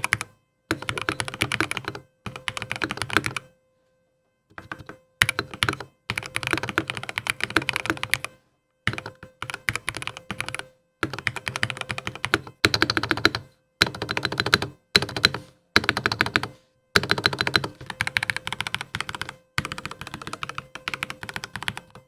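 Typing on a Mountain Everest 60 mechanical keyboard fitted with Linear 45 switches, its key presses dampened by a silicone base layer and two layers of foam. Fast runs of keystrokes lasting a second or two each, separated by short pauses, with a longer pause about four seconds in.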